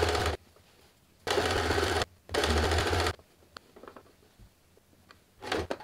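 Janome 2319S domestic sewing machine stitching fabric in short runs: it stops a moment in, then runs twice more for under a second each, with pauses between. A few small clicks follow, and a brief burst near the end.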